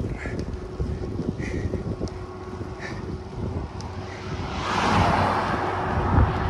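Wind buffeting the microphone, with a faint short squeak about every second and a half from the road bike as it is pushed. A motor vehicle then passes, growing louder from about four and a half seconds in and loudest near the end.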